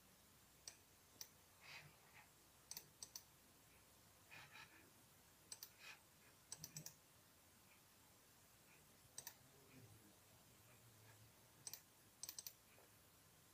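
Faint, sharp clicks of a computer's pointing-device button, some single and some in quick double and triple clicks, as files and folders are selected and opened on a Windows laptop.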